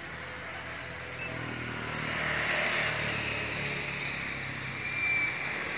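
A motorcycle and a car passing on a rain-wet road: tyre hiss on the wet asphalt swells from about two seconds in, over a low engine hum.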